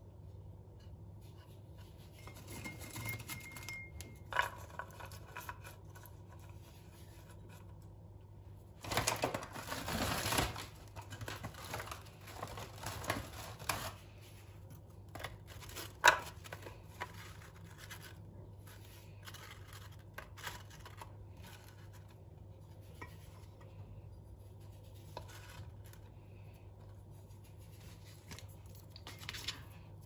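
Hands arranging food on a wooden board: light clicks and scrapes as cheese slices, walnuts and rye crispbread are set down, with a rustling burst about nine seconds in and one sharp knock about sixteen seconds in. A low steady hum lies underneath.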